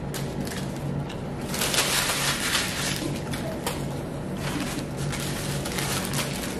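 Crunching of hard-shell tacos being bitten and chewed, with paper taco wrappers crinkling; the loudest stretch of crackling comes a little over a second in and lasts about a second and a half.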